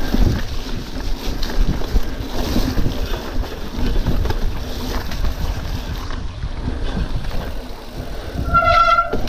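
Wind buffeting the microphone and the rattle and knocks of a full-suspension mountain bike riding fast over a rough forest trail. Near the end a short high-pitched tone sounds briefly.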